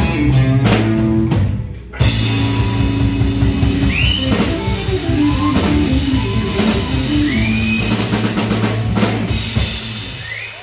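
Live rock band playing an instrumental passage: two electric guitars over a full drum kit. The band drops out briefly and crashes back in about two seconds in, the lead guitar bends a note up three times, and the music winds down near the end.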